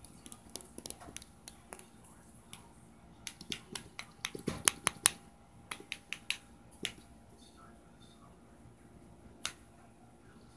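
Irregular sharp clicks and taps of handling close to the microphone as a cosmetic bottle and the camera are handled, loudest in a cluster about four and a half to five seconds in, with one more near the end.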